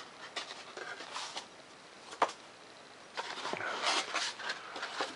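Foam-board model airplane parts being handled and set down on paper plans: scattered rustling and light knocks, with one sharp tap about two seconds in and a longer stretch of rustling past the middle.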